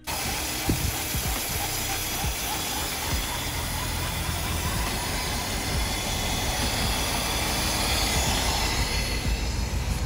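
Mercedes 420SEL's 4.2-litre V8 running, heard close at the open engine bay as a loud steady hiss with a low rumble underneath.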